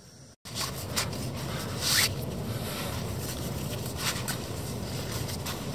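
Laces of a La Sportiva climbing shoe being pulled tight through the eyelets: several short rasping pulls, the loudest about two seconds in, over a steady low rumble.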